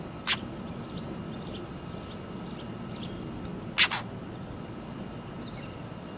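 Northern mockingbirds calling: a run of short, high chirps about twice a second, broken by a loud, harsh call near the start and a louder double call a little past halfway.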